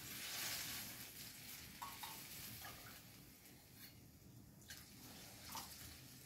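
Faint hiss of water and vegetables sizzling in a hot steel kadai on a gas burner, strongest in the first second and then dying away, with a few light clinks of steel spoon and containers.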